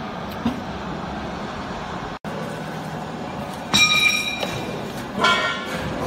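Steady machine noise from a vertical baler, with a sharp metallic clank and ring a little past halfway and a shorter metallic squeal near the end, as its steel chamber door is handled.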